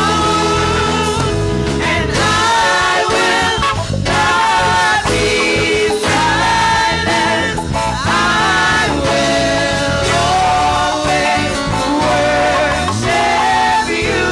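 Gospel praise-and-worship song: several women singing together into microphones, backed by a live church band.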